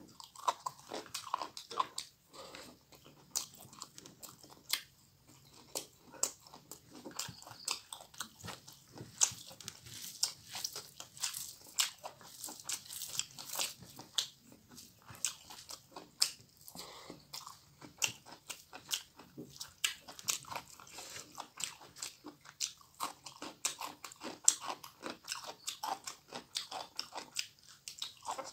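A person chewing and crunching raw mizen leaves with spicy pork fry and rice close to the microphone: a continuous run of many small crunches and clicks.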